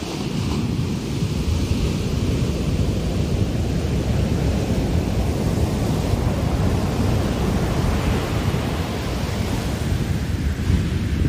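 Heavy surf breaking and foam rushing up a sandy beach: a continuous rush of white water that swells near the start and again about eight seconds in. Wind buffets the microphone under it as a deep rumble.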